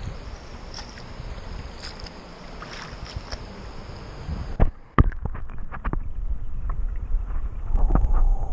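Shallow river water rushing over stones. A little before halfway a loud knock comes as the camera goes under, and the sound turns muffled and dull, with a run of sharp clicks and knocks from the water and stones.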